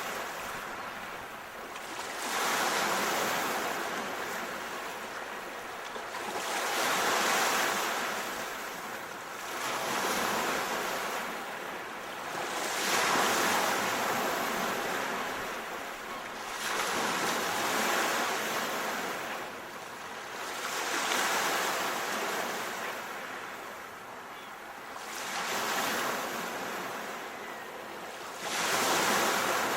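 Sea waves washing in on a shore: surges of surf about every four seconds, with a steady hiss between them.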